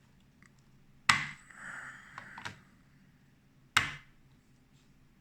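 Two batteries being pushed into a battery charger's slots: a sharp click about a second in, a short scrape with small clicks after it, then a second sharp click near the end.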